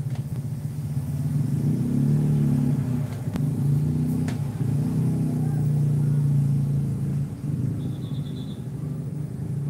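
A bus's engine rumbling as it passes, swelling from about a second in and easing off after about seven seconds. A short high-pitched beeping sounds about eight seconds in.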